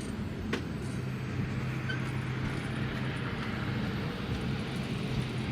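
Steady hum and rush of air inside an Airbus A320 cabin, with a single sharp click about half a second in.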